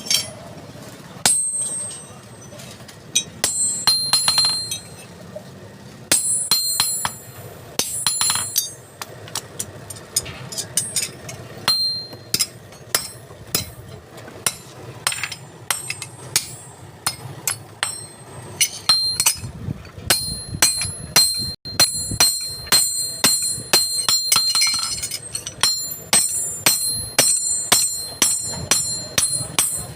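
Hammer blows on steel, each strike ringing out with a bright metallic tone. The blows are irregular at first, then settle into a steady beat of about two a second in the second half.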